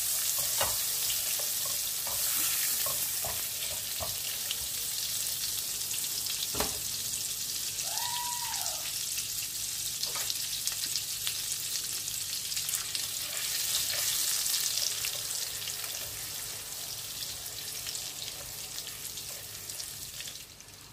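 Butter melting and sizzling in a hot frying pan, with scattered clicks and scrapes as a silicone spatula pushes it around. A short squeak that rises and falls comes about eight seconds in, and the sizzle eases off toward the end.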